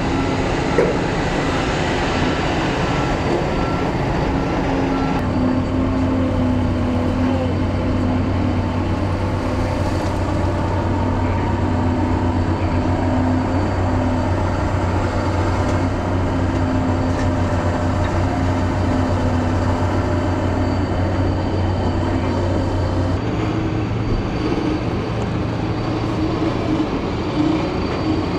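Heavy diesel construction machinery running steadily: a Volvo crawler excavator's engine and hydraulics as it digs and loads a dump truck, with a short knock about a second in. About 23 seconds in the sound shifts to other heavy machinery running.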